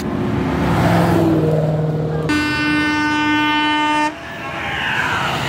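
Car engines and traffic running, then a vehicle horn sounds one steady note for about two seconds, starting a couple of seconds in and cutting off sharply. Engine and tyre noise swells again near the end.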